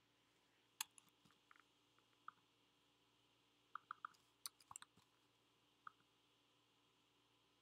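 Faint, scattered clicks of a computer mouse and keyboard, with a quick run of clicks about four seconds in.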